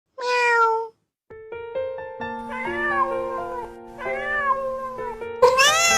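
A cat meows once, then three or four more rising-and-falling meows follow over background music with held notes that starts about a second in.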